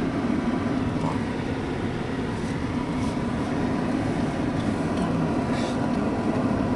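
Steady road noise inside a moving car's cabin: tyres and engine running at an even cruising pace on a paved road.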